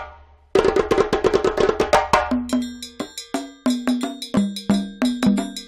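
Background music of quick, sharply struck percussive notes in an even rhythm, starting about half a second in after a brief gap, with a lower pitched line joining after about two seconds.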